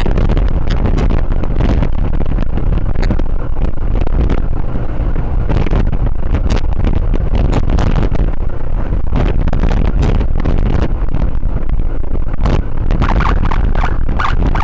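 Wind buffeting the microphone over the steady running noise of a motorcycle riding at speed in traffic.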